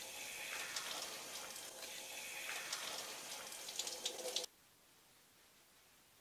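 Handheld shower head spraying water over a person's head and body, splashing and spattering, then cutting off abruptly about four and a half seconds in.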